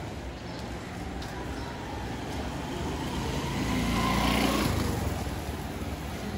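A motor vehicle passing close by on a street: its engine grows louder, is loudest about four seconds in, then drops away abruptly. A steady street background underlies it.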